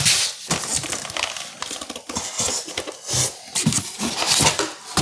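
Polystyrene foam packing end caps being pulled off a stand mixer: irregular scraping and rustling of foam against the machine, with a few sharp knocks.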